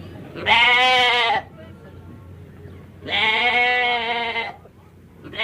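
A sheep bleating: a short bleat about half a second in, a longer wavering one about three seconds in, and another starting right at the end.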